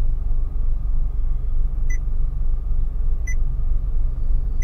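Short touch-feedback beeps from a Xenos Android car head unit as its touchscreen is tapped, two or three about a second and a half apart, over the steady low rumble of the car's cabin.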